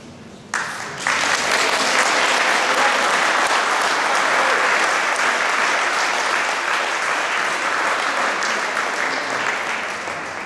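Audience applauding. The clapping starts suddenly about half a second in, swells a moment later, holds steady, and fades near the end.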